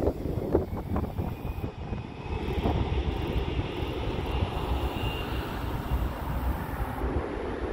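Airbus A320-family airliner landing, its jet engines giving a steady low rumble. A faint high whine comes in about two seconds in and fades around touchdown.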